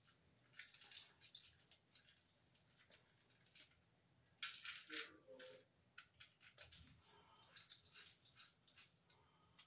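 Screwdriver tightening down the unused load terminal screws on a GFCI receptacle held in the hand: faint, irregular clicks and scrapes of metal on metal and plastic, with a louder cluster about halfway through.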